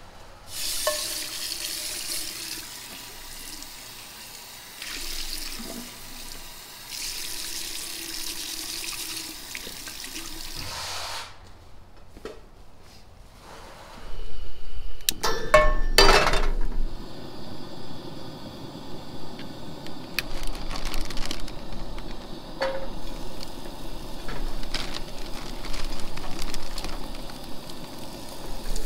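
Water running from a sink tap in several long spells over the first eleven seconds or so, as dishes are washed. A few seconds later come a couple of sharp knocks of a door and footsteps, then a steady hiss with scattered small clicks.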